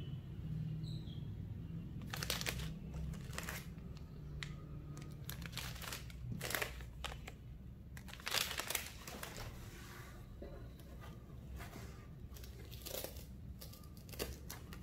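Thin plastic packaging crinkling in irregular bursts as it is handled: small clear bags of screws and the wrapping around a new NAS unit.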